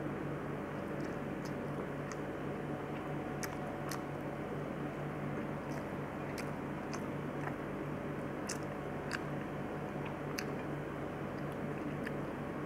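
Person eating by hand: chewing and squishing mouth sounds, with scattered sharp clicks at irregular times, over a steady low hum.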